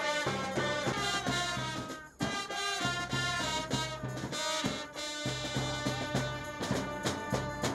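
Military brass band playing a march-like tune, trumpets leading over drums, with a short break about two seconds in.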